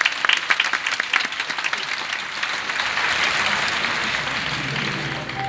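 Audience applauding in a large theatre, loud at first and slowly dying away. Music starts near the end.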